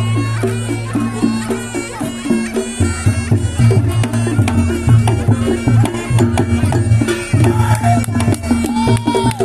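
Reog Ponorogo music: a slompret (Javanese shawm) plays a wavering, reedy melody over a held drone, with drums and gong-chimes striking a beat that becomes a pulsing rhythm about three seconds in.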